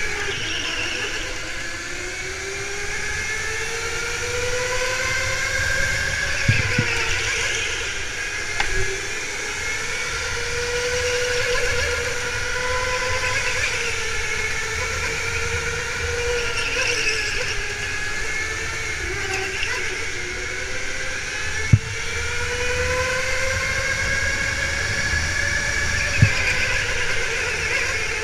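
Go-kart motor whining as it drives, its pitch rising and falling over and over with the speed through the corners, with three sharp knocks along the way.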